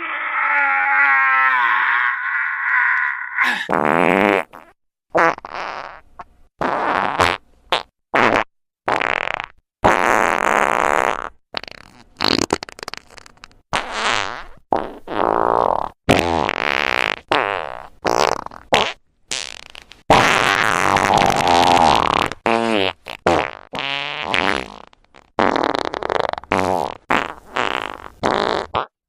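Long farting sound effect: a wavering, drawn-out fart for about three seconds, then a string of many separate fart blasts, some short and some lasting a second or two, with brief gaps between them.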